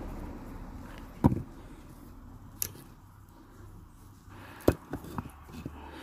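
Dry firewood sticks and a hollow concrete block knocking together as a small wood fire is laid: a handful of sharp knocks, the loudest about a second in and again near the end.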